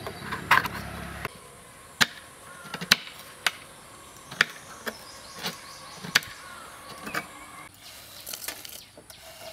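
A kitchen knife chopping a block of date-palm jaggery on a cutting board: a string of sharp, irregular knocks, roughly one or two a second.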